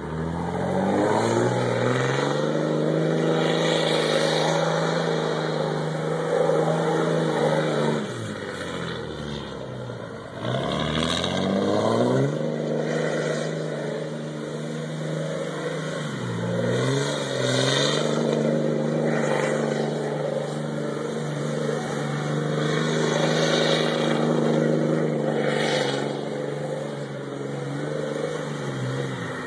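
Straight-piped Dodge Ram 5.9 Cummins turbo-diesel inline-six with its muffler deleted, revving hard and held at high rpm under load. The note drops away and climbs back up twice, once about a third of the way in and again past the middle, then eases off near the end.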